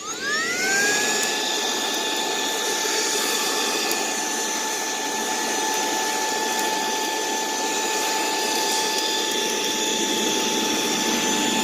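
Saker cordless handheld vacuum, used as a blower on smoker coals. The motor spins up with a rising whine in the first second, then runs steadily with a high whine over a rush of air.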